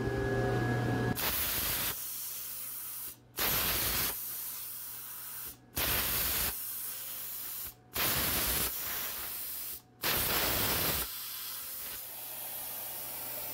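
Yeswelder Cut 55DS Pro plasma cutter with an IPT-40 torch in a CNC machine head, cutting steel plate with a steady loud hiss of air and arc. The hiss starts about a second in and cuts out briefly four times as the torch stops and restarts between cuts. Each time it comes back louder for about a second before settling.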